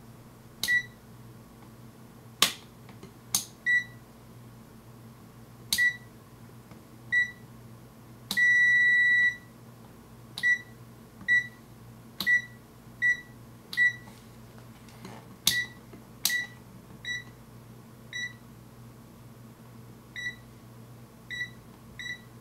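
RadioShack true-RMS digital multimeter beeping as its rotary range selector is turned and its buttons are pressed: short high beeps every second or so, with one beep held for about a second a little before the middle. Sharp clicks of the switch and buttons come between and with the beeps.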